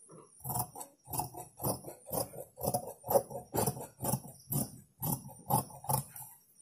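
Large tailoring scissors cutting through fabric along a chalk line, a steady run of snips about two a second.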